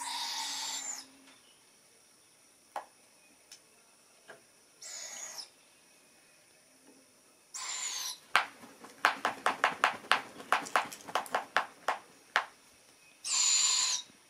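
Barred owl owlets giving raspy, hissing begging screeches, four calls each about a second long, each with a thin high tone near its end. Between the third and fourth calls comes a quick run of about fifteen sharp clicks.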